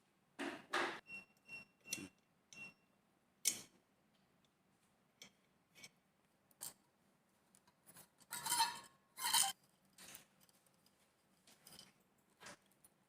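Small hard parts and tools being handled during a ceiling fan installation: scattered clicks and brief scrapes. Four light clinks in the first few seconds have a short metallic ring, and two longer scraping sounds come about two-thirds of the way through.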